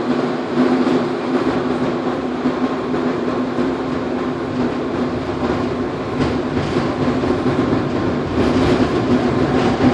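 Old tram running along the track, heard from inside the car: a steady hum and rumble with a few faint clicks of the wheels. Near the end a motor whine rises in pitch as the tram speeds up.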